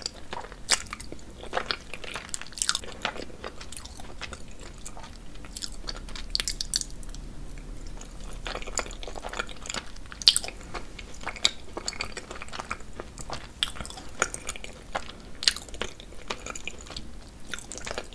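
Close-miked chewing of cheesy lasagna, with irregular wet clicks and smacks from the mouth.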